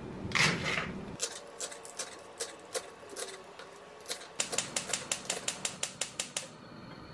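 Kitchen knife chopping a green onion on a wooden cutting board. The chops come at a steady pace for about four seconds, then speed up to a quick run of about six chops a second.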